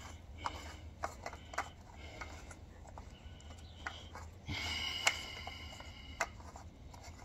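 Light, irregular clicks and taps of a plastic welding-wire spool being handled and fitted onto a welder's spool holder. A chicken clucks faintly in the background about halfway through.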